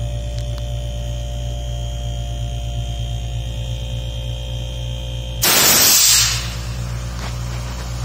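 A steady low electrical hum, with a brief loud hiss about five and a half seconds in that lasts under a second.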